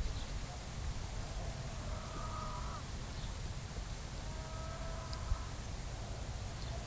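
Dutch Landrace goats bleating twice, short calls about two and four and a half seconds in, over a steady high chirring of insects and a low rumble of wind on the microphone.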